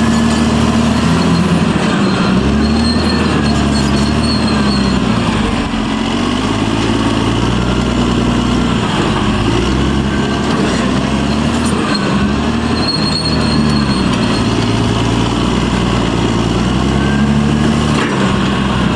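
Caterpillar D6R bulldozer's diesel engine working under changing load, its pitch repeatedly rising and falling. A fainter higher whine glides up and down with it, and there are two brief high squeaks.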